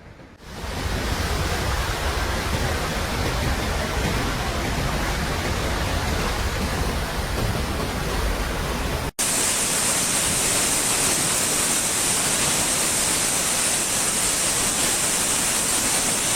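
Steady rushing roar of raging floodwater. About nine seconds in it cuts abruptly to another continuous rushing noise with a strong high hiss.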